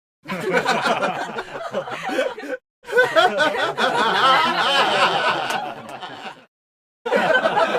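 Laughter sound effects: three short clips of people snickering and chuckling, each cut off abruptly into silence.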